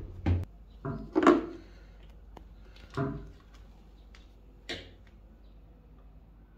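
Short plastic clicks and knocks from handling a washing machine's power line filter boards and a screwdriver, about five of them, the loudest about a second in.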